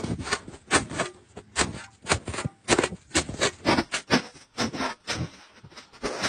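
Packed snow crunching under a snow shovel and boots as a snow shelter is dug out: a quick run of short, sharp crunches, about three a second.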